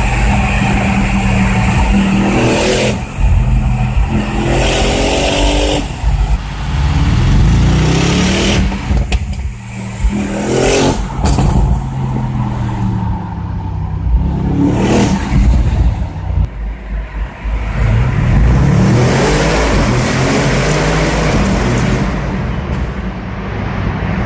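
Audi RS6 C7's twin-turbo V8 with performance exhaust, heard from inside the car, accelerating hard several times: revs climb, break at each gear change and climb again. Sharp exhaust crackles and pops come in the lulls around the middle.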